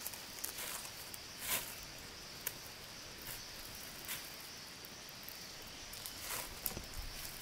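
Steady high-pitched drone of insects, with scattered short rustles and light knocks.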